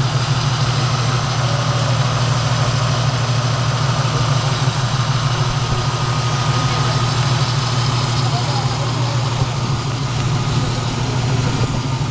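1981 VAM Gremlin X's 258 (4.2 L) inline six idling steadily through headers and true dual 2-inch straight pipes with Magnaflow catalytic converters.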